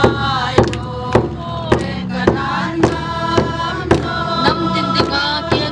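A congregation of women singing a hymn together in unison, with hand claps keeping a steady beat a little under twice a second.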